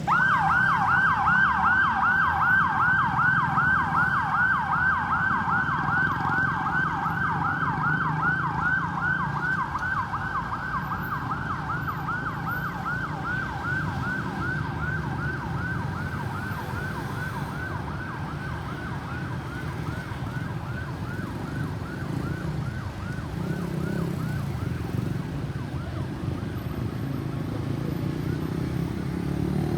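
Ambulance electronic siren on a fast yelp, a rapid rising whoop repeating several times a second, loud at first and fading out over the first half or so. Steady road-traffic rumble underneath.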